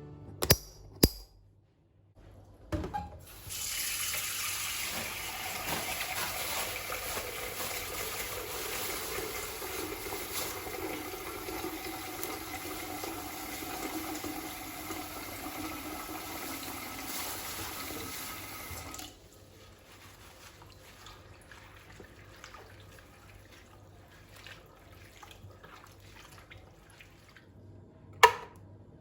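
Kitchen tap running steadily into a sink for about fifteen seconds, then shut off abruptly. Quiet handling follows, with a few sharp knocks just after the start and one near the end.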